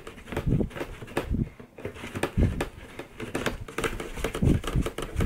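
Corrugated cardboard shipping box being handled, its flaps folding and rubbing with irregular thumps and crackly scrapes.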